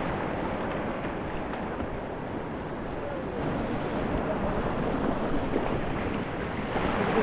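Whitewater of a rocky mountain creek rushing steadily, with wind noise on the microphone.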